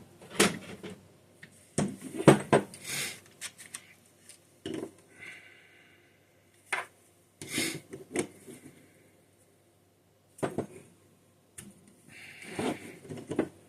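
Metal carburetor parts and hand tools clinking, knocking and scraping on a work surface, in scattered clusters of sharp taps with quiet gaps between, as a Holley carburetor is taken apart.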